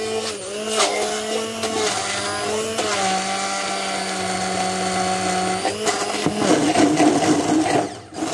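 Hand-held immersion blender running in a plastic beaker, chopping red chilies. Its motor pitch wavers as the blade hits the chunks, holds steady for a few seconds, then turns rougher and cuts out briefly near the end.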